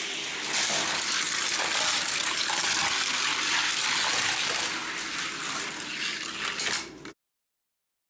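Die-cast toy cars rolling down a gravity race track: a steady rushing hiss of wheels running on the track. It cuts off abruptly about seven seconds in.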